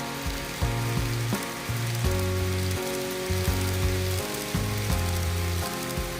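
KATO N-gauge model train running on the layout track: a fine crackle of small clicks from the wheels on the rails, over a low motor hum that comes and goes in short stretches.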